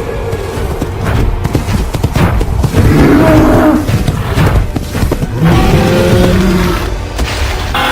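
Stampede sound effect: a loud, continuous rumble of many hooves, with short animal calls and roars breaking through it.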